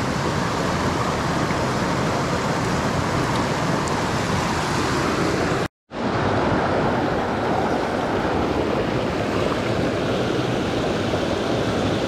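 Rushing mountain creek water, a steady loud hiss. It drops out to silence for a split second about halfway through, then comes straight back.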